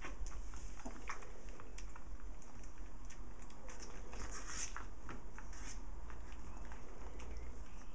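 A litter of puppies nursing and scrambling over one another: scattered soft clicks, rustles and suckling noises, busiest about halfway through, over a steady low hum.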